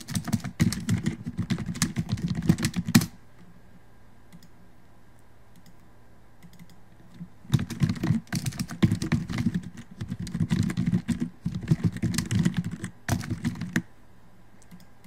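Rapid typing on a computer keyboard in two runs of keystrokes: about three seconds of typing, a pause of several seconds, then about six seconds more.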